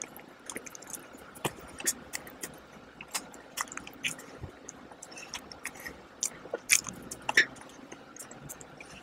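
Close-up eating sounds: a bite into a chocolate-dipped strawberry, then chewing with scattered mouth clicks and smacks, the two loudest a little over two thirds of the way in.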